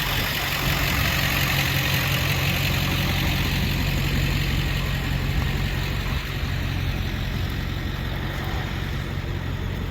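Ford F-250's 7.3-litre V8 diesel idling steadily.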